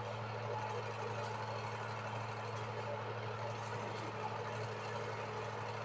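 A pot of kadha, water with herbs and spices, boiling on an electric heater: a steady bubbling hiss over a low, even hum.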